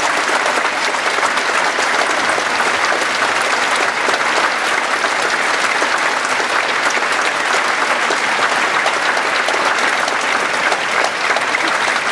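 Theatre audience applauding steadily: dense, continuous clapping from many hands.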